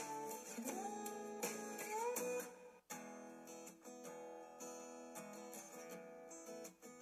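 Background music of acoustic guitar, strummed and plucked, with notes that slide in pitch; it breaks off for a moment about three seconds in and carries on with held notes.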